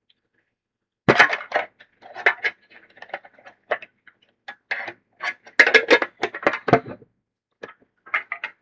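Foil booster pack wrapper crinkling and crackling as it is torn open and the cards are pulled out: an irregular run of crisp crackles, loudest about a second in and again around six seconds.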